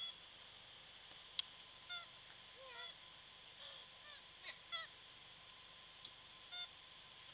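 Short squeaky animal calls, each a quick curved note, come roughly once a second from about two seconds in, over a steady high-pitched buzz. There is one sharp click near one and a half seconds.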